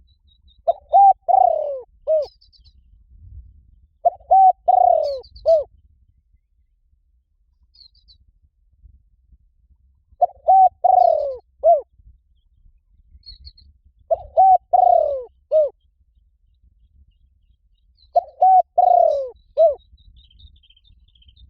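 Spotted dove cooing: five phrases of several low coos each, about four seconds apart, each phrase ending in a drawn-out falling note. Faint high chirps of small birds come in between.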